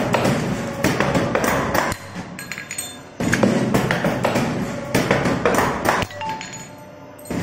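Automatic wire bracket-forming machine cycling: spells of about three seconds of rapid clattering and knocking from its bending and cutting tooling, broken twice by a pause of about a second between cycles.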